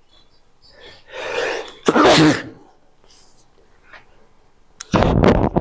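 A man sneezing: a hissing breath in about a second in, then a loud sneeze about two seconds in, and another loud burst near the end.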